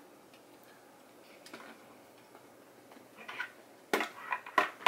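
Hard plastic clicks and knocks of LEGO lion models being handled and set down on a table. A few faint clicks come first, then several sharp knocks close together near the end.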